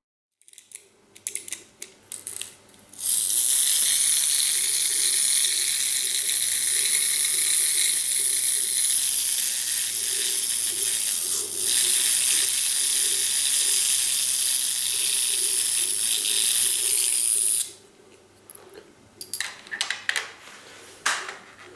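Clockwork motor of a vintage Marx toy car, freshly oiled with watch oil, clicking as it is handled and wound, then running with a loud, steady whirr for about fifteen seconds before it stops abruptly. More clicks follow near the end.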